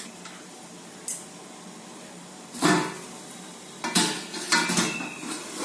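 Metal cookware being handled: separate clanks and clinks of pots, lid and utensils, a small one about a second in, a louder clank a little under three seconds in, and a quick run of clinks near the end.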